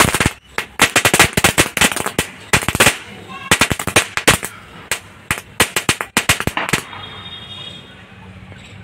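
Chatar patar firecracker packet going off on concrete: a rapid, irregular string of sharp crackling bangs that thins out and stops about seven seconds in, leaving a faint hiss as the remains burn.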